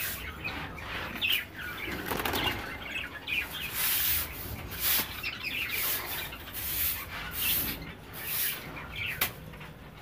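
Broom sweeping a concrete floor: a run of short scratchy swishing strokes, about one and a half a second. A few faint chirps from caged birds come through.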